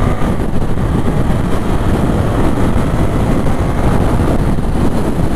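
Heavy wind rush on a helmet chin-mounted GoPro microphone at highway speed, over the motorcycle's engine, as the bike accelerates past 100 km/h. The noise is loud and steady throughout.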